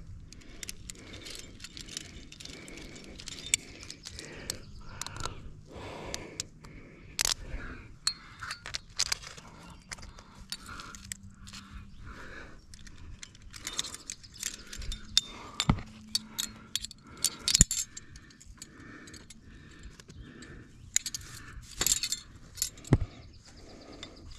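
Metal climbing gear on a rack, carabiners and protection, clinking and jangling in irregular sharp clinks, with a busier run of louder clinks about two thirds of the way through.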